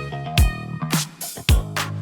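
Background music: a funk-style track with a steady beat and guitar.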